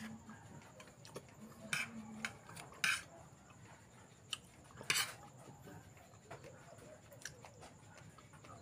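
Meal-time clatter of dishes and utensils, with a few short, sharp scrapes or clinks about two, three and five seconds in and lighter clicks between.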